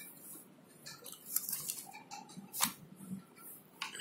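Faint rustling and scratching of a paper notebook and ballpoint pen being handled, with a couple of sharp clicks, one just past the middle and one near the end.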